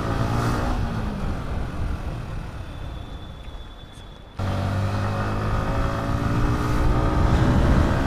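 Yamaha MT-15's single-cylinder engine running under way, with wind and road noise. It fades over the first few seconds as the bike eases off, then about four seconds in cuts abruptly back to a louder, steady engine note that rises slightly in pitch.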